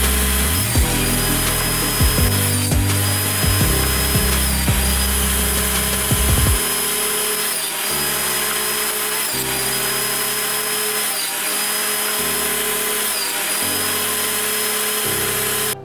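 Table saw running and cutting a spline kerf into the mitered corner of a wooden box held in a spline jig, under background music.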